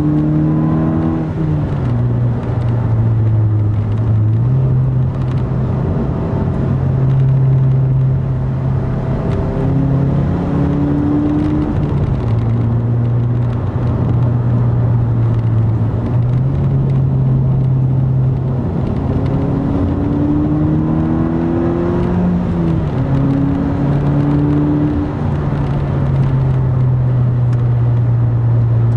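2010 Mazda 3's four-cylinder engine running through a Corksport dual exhaust and short ram intake while driving, heard from inside the cabin. The low engine note is steady and shifts up and down in pitch several times as the car speeds up and eases off.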